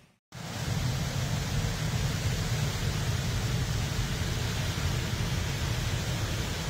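Steady beach ambience of ocean surf and wind, a continuous even rushing noise heaviest in the low range. It begins right after a brief cut to silence at the very start.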